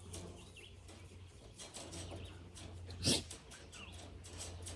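Outdoor ambience with small birds chirping now and then over a steady low hum, scattered light clicks, and one sharp knock about three seconds in.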